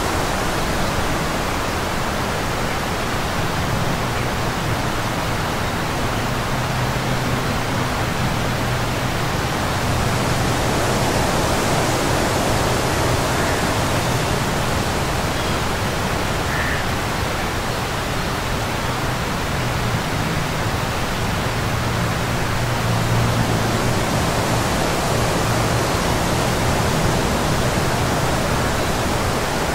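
Steady wind noise on the microphone: an even rushing hiss with a low rumble underneath that swells slightly now and then.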